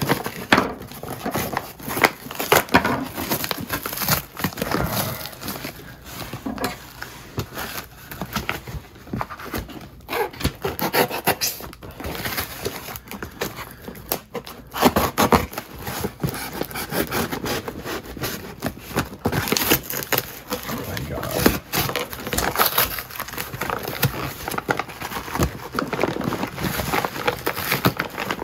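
Cardboard box wrapped in packing tape and plastic film being cut with a folding knife and torn open by hand: irregular crackling, scraping and ripping of tape, film and cardboard.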